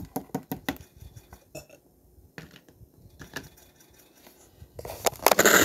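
A small plastic toy figurine tapped again and again on a tabletop, a run of quick light clicks as it is 'walked' along, then a loud rushing noise near the end.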